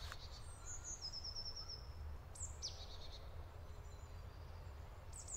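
Faint woodland ambience: small birds calling, with a quick trill of repeated high notes about a second in and a couple of sharp falling chirps about halfway through, over a steady low rumble.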